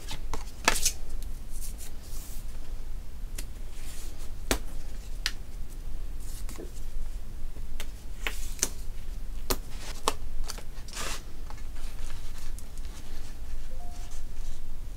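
Card stock being handled on a tabletop: rustling and sliding with scattered light taps and clicks, as a stamped card panel is backed with tape and pressed down onto a plain card base.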